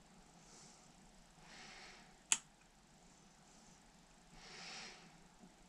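Multimeter probe tips being placed on the MOSFET legs of an electric scooter's controller board: faint handling with one sharp click a little over two seconds in and two soft swells of hiss.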